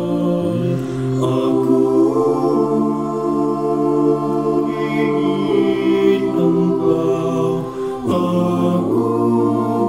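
A cappella men's voices singing in close harmony: held chords that move to new chords every second or two, with a brief break about eight seconds in before the next chord.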